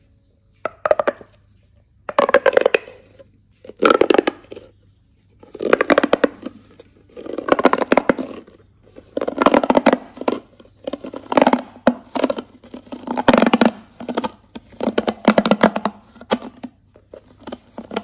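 Plastic pop tube fidget toy being stretched, bent and squashed by hand. Its corrugated ribs snap in and out in crackling rasps, about ten bursts each lasting under a second, every second or two.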